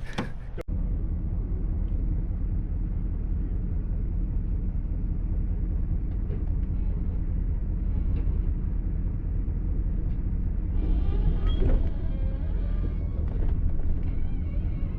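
Half-ton pickup truck driving: a steady low rumble of engine and road noise, with faint squeaks about eleven seconds in.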